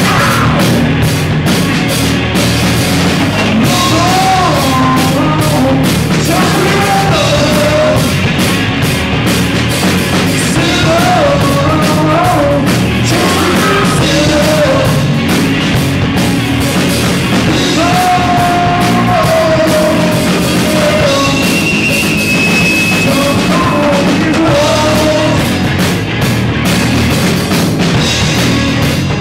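Rock band playing live and loud, with a male singer's melody over drums and cymbals.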